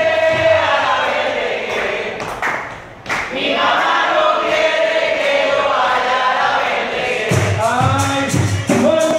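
A group of voices singing a Puerto Rican bomba song in call-and-response, the chorus answering the lead. About seven seconds in, bomba drums and hand percussion come in with a steady beat.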